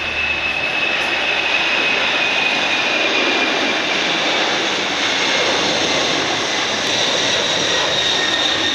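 Four jet engines of a Boeing 747 freighter at takeoff power as it lifts off and climbs away: a loud, steady rush with a high-pitched whine that drifts slowly down in pitch.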